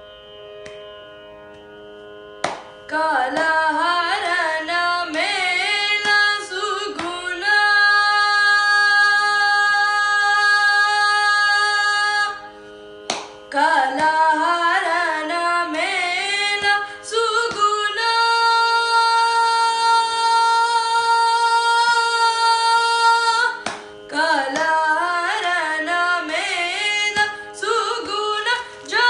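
A boy singing a Carnatic kriti solo over a steady drone. His voice enters about three seconds in with quick, ornamented turns and then holds two long steady notes.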